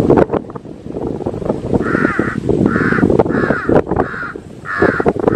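Crows cawing: a series of short harsh caws, about five, beginning roughly two seconds in, over a constant low noise.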